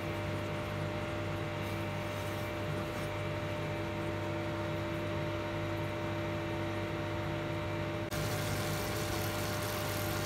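Induction cooktop running with a steady electrical hum and fan hiss, heating a pan of boiling dark brown sugar syrup. The hiss turns brighter about eight seconds in.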